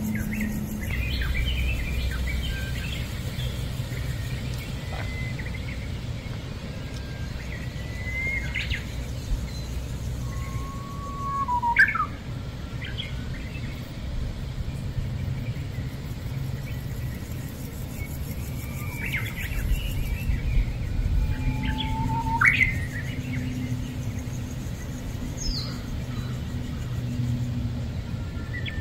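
Birds chirping and calling at intervals over a steady low background rumble. Two louder calls, each a short level note that sweeps sharply upward, come near the middle and again later on.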